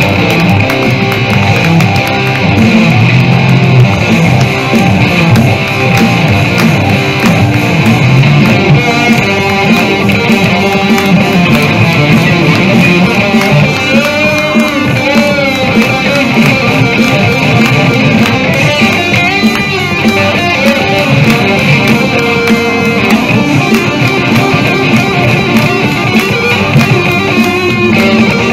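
Electric guitar played live as a rock lead part, with wavering held notes around the middle.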